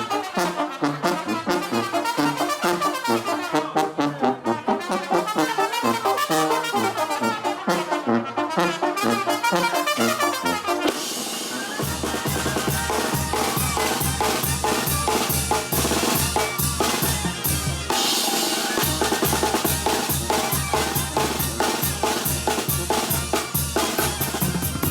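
Banda brass band playing live: trumpets and trombones carry the melody over drums. About halfway through, a steady low bass line comes in, pulsing a little over twice a second.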